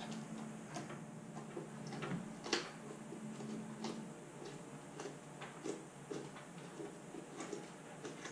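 Irregular small clicks and knocks of an Audi S4 B7 plastic headlight lens and housing handled by gloved hands as the lens is pressed down into butyl sealant, with one louder click about two and a half seconds in.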